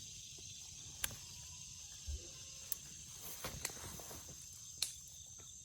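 Steady high-pitched chirring of insects in the garden, with a handful of sharp clicks scattered through it.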